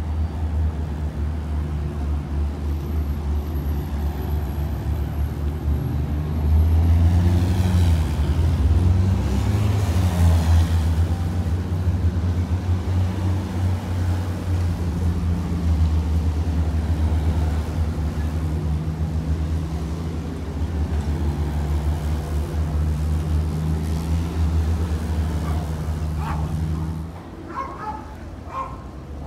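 Diesel engines of a column of eight-wheeled Rosomak armoured vehicles driving past, a steady low drone. It swells as one vehicle passes close, about seven to eleven seconds in, and drops away sharply near the end.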